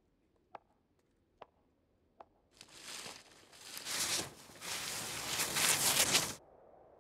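Footsteps, sharp taps about one a second, then a loud crackling, rustling noise that swells and fades for about four seconds and cuts off suddenly.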